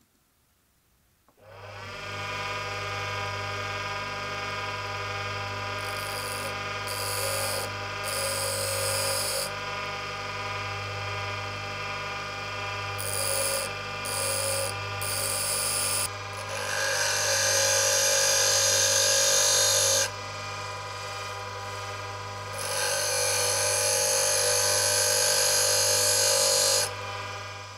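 Bench grinder running with a steady hum, starting about a second and a half in. A steel twist drill bit is pressed against its white grinding wheel to sharpen it: two groups of three short touches, each a harsh hiss, then two longer grinding passes of about four seconds each.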